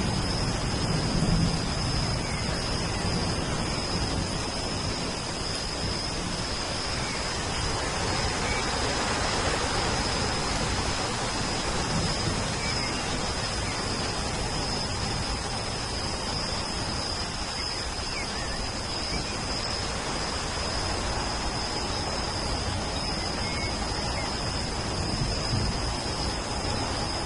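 Steady rainfall, an even hiss, with a thin high steady tone running through it. The tail of a thunder rumble fades away in the first second or two.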